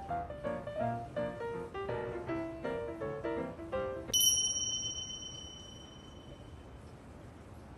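Background music of short separate notes plays, then stops about four seconds in. At that moment a single bright bell-like ding strikes and rings out for about two seconds. Faint room hiss follows.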